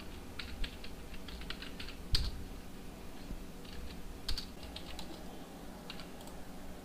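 Computer keyboard typing: faint, irregular key clicks, with a couple of slightly louder keystrokes about two and four seconds in.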